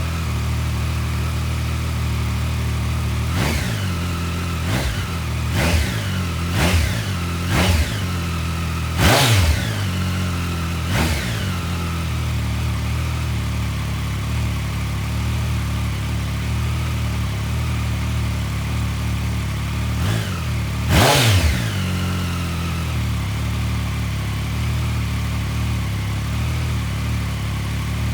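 Triumph Street Triple 765's inline three-cylinder engine idling through its standard exhaust can, with quick throttle blips: a cluster of about seven between roughly 3 and 11 seconds in, and two more around 20 seconds, each rev rising and dropping back to a steady idle.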